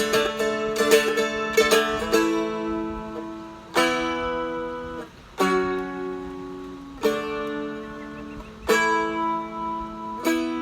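A Seagull Merlin, a four-string fretted stick dulcimer, strummed solo. A quick run of strums comes first, then single chords about every second and a half, each left to ring out over the droning strings.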